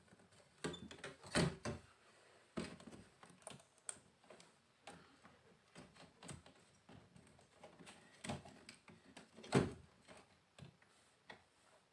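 Irregular clicks and knocks of hands fitting a TV mainboard and its cable connectors back into the plastic housing of an LED TV. Two knocks stand out above the rest, one about a second and a half in and another a couple of seconds before the end.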